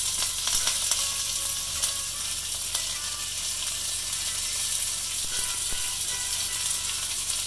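Fresh curry leaves and mustard seeds spitting in hot mustard oil in a frying pan: a dense, steady crackle of sharp pops and sizzling, the tempering (tadka) taking as the wet leaves hit the oil.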